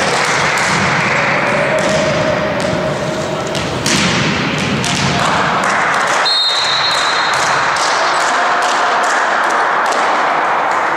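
Volleyball thuds and taps, ball bounces and voices echoing in a large sports hall. About six seconds in, a referee's whistle gives one short blast, signalling the serve.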